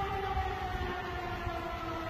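Outdoor tornado warning siren sounding one long tone that slowly falls in pitch, over a low rumbling noise.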